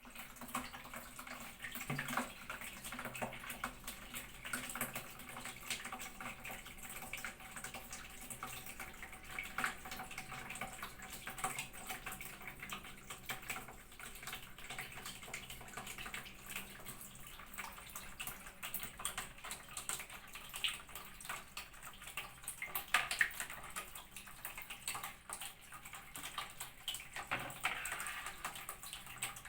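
Water splashing and pouring in irregular bursts as a cat is bathed.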